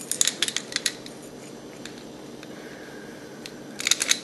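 Metal pick clicking and scraping against the pins of a four-pin discus padlock as it is raked: a quick run of sharp ticks in the first second, then another tight run just before the end.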